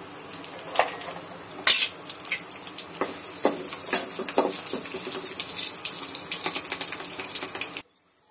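Whole garlic cloves sizzling and crackling in hot mustard oil in an aluminium kadai, with a few louder pops. The sizzle stops abruptly near the end.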